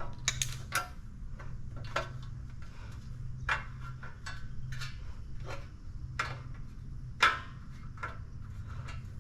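Irregular metallic clicks and taps of hand tools and small fasteners being handled while a car intake pipe is fitted, the loudest about seven seconds in, over a steady low hum.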